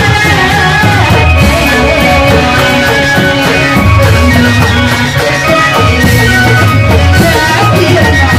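Loud live music with a pulsing low beat and sustained melodic tones: the accompaniment of a Reog Bleknong masked dance troupe.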